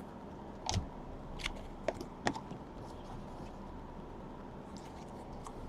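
Trading cards being handled: a few faint, sharp clicks and light rustles as cards are flipped and set down, mostly in the first couple of seconds.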